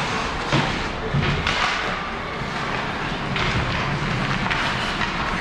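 Ice hockey play: skates scraping across the ice, with sticks and puck clacking in several sharp knocks over the steady hiss of skating.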